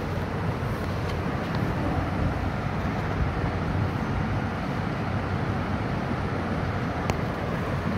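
Steady low rumbling background noise, even throughout, with a faint click about seven seconds in.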